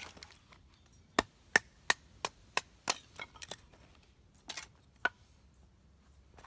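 Firewood being split by batoning: a wooden baton striking the spine of a Mora knife driven through the wood, a quick run of about nine sharp wooden knocks followed by two more spaced out.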